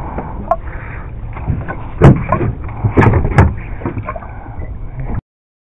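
Small boat's motor running steadily under wind noise, with a few sharp knocks and thumps about two and three seconds in; the sound cuts off abruptly near the end.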